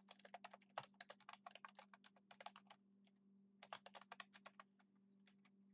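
Faint typing on a computer keyboard: a quick run of keystrokes, a pause of about a second, then a second short run near the middle, with a few scattered keys near the end. A low steady hum sits beneath.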